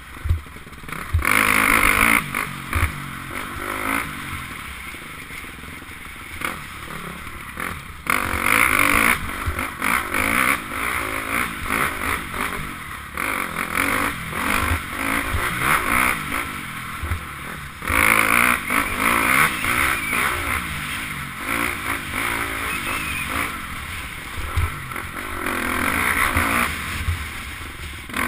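KTM 250 enduro dirt bike's engine being ridden hard off-road, revving up and backing off over and over. Scattered low knocks and thumps come in among the engine.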